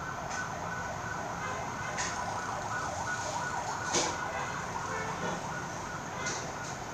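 Steady background hum and hiss with faint rising and falling tones, and a few sharp taps, the loudest about four seconds in, from a felt-tip marker writing digits on a notebook page.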